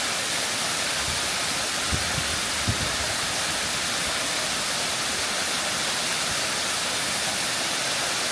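A small waterfall gives a steady rush of falling water, with a couple of soft low bumps about two and three seconds in.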